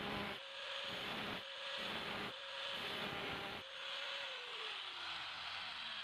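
Electric grinder working a blade cut from an old saw: a steady motor whine, with the hiss of the grinding swelling about once a second. About four seconds in, the motor winds down and its pitch falls.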